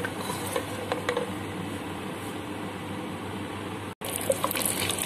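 Almonds, cashews, coconut and raisins lightly roasting in desi ghee on a low flame: a steady sizzle with scattered clicks of a wooden spoon stirring against the pot. The sound breaks off for an instant about four seconds in, and the crackle is brighter after it.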